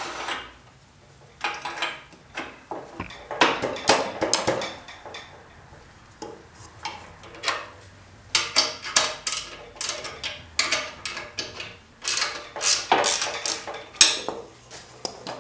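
Irregular metal clanks and knocks of a wood lathe's tailstock and tool rest being moved along the bed and clamped in place around a square wood blank, in uneven clusters that get busier in the second half.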